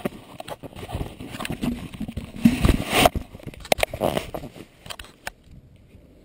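Handling noise from the camera being gripped and moved: fingers rubbing and knocking on the camera body in a run of irregular clicks and scrapes that stops suddenly about five seconds in.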